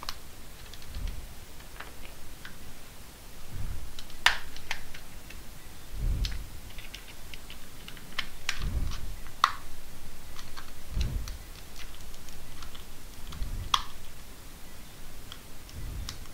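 Plastic pry tool (spudger) being worked along the seam of a Samsung TV remote's plastic case: scattered small clicks and scrapes, with three sharper snaps a few seconds apart as the case's retaining tabs give, and dull knocks from handling the remote.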